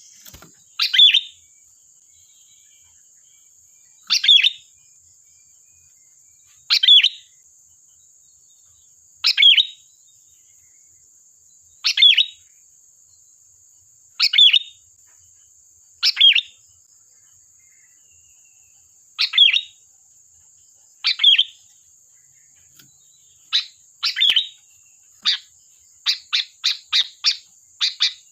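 Sooty-headed bulbul (kutilang) calling: short, sharp calls repeated about every two to three seconds, quickening near the end into a rapid run of notes. A faint steady high-pitched hiss runs beneath.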